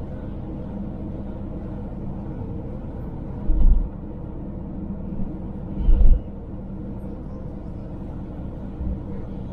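Suzuki Jimny driving, heard from inside the cabin: a steady engine and road drone, with two heavy low thumps about three and a half seconds in and again about six seconds in.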